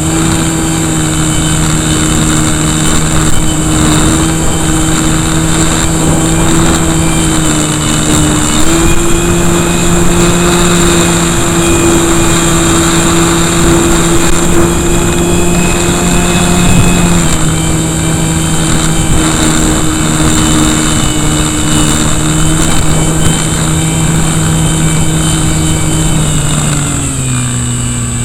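KV1100 brushless electric motor and propeller of an RC Cessna running in flight, heard up close from a camera mounted beside the motor: a steady buzzing drone with a high whine over it and wind rush. The pitch steps up about eight seconds in, eases down a little around seventeen seconds, and drops further near the end.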